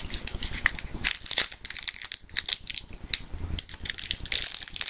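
Plastic wrapper of a trading-card booster pack crinkling and rustling in irregular crackles as hands work at tearing it open.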